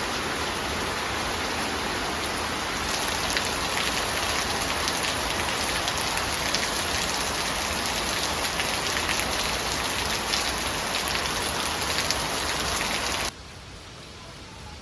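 Steady rain with a dense patter of drops, growing heavier about three seconds in. It cuts off suddenly near the end, leaving a much quieter background.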